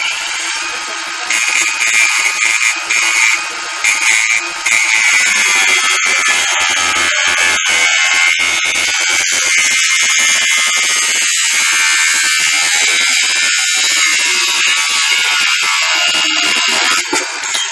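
Angle grinder grinding into steel: a loud, steady high whine with the rasp of the disc on metal. It starts abruptly and runs without a break.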